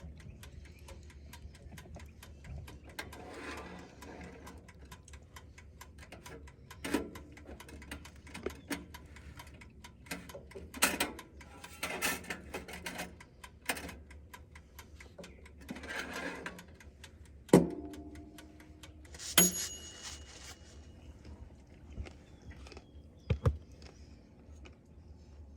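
Dash mini toaster oven's dial timer ticking steadily, with scattered handling clatter. A sharp clunk comes a little past two thirds of the way in, then a short bell-like ding.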